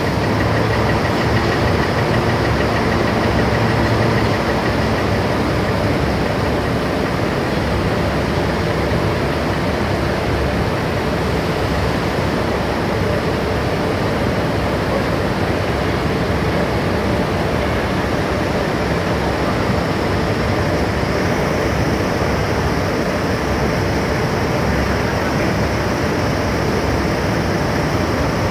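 Heavy machinery running with a steady loud drone, with a faint hum under it that fades out about five seconds in.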